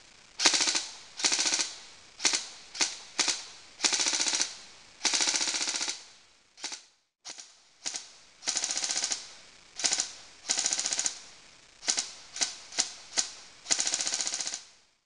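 Evolution Airsoft LR-300 electric airsoft rifle firing with its pneumatic blowback, alternating single shots with short full-auto bursts of rapid clacks, about a dozen strings in all, stopping near the end.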